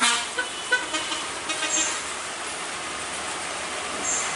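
Vehicle horn tooting briefly right at the start and again around a second and a half in, over the steady hiss of heavy rain and the running engines of trucks climbing a steep hairpin bend.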